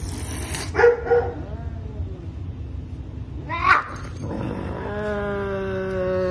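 Savannah cat calling: a hiss at the start, a loud yowl about a second in, a short rising yelp a little before four seconds, then a steady, even-pitched moan from about five seconds in as it takes chicken from a hand.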